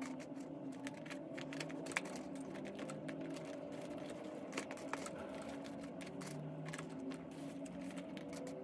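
Small irregular clicks and rustles of chunks of orchid bark being picked out of a plastic pot and pressed in around an orchid in a small clear plastic pot.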